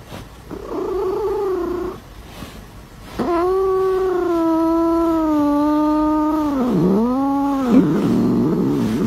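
A cat yowling: a short call in the first two seconds, then one long drawn-out yowl from about three seconds in that sags in pitch, dips and ends in a shorter call.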